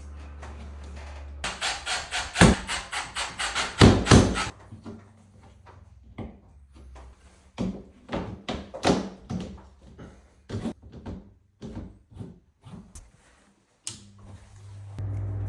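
A saw cutting with quick, even strokes, about five a second for some three seconds, as the hole for the new exhaust fan is enlarged. Scattered knocks and taps follow, and a low steady hum starts near the end.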